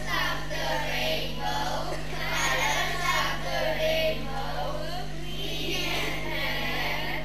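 A group of young children singing together, with a steady low hum underneath.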